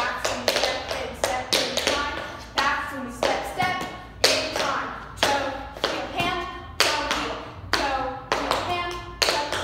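Tap shoes striking a wooden floor in a quick, uneven dance rhythm of sharp taps, with a girl's voice singing along.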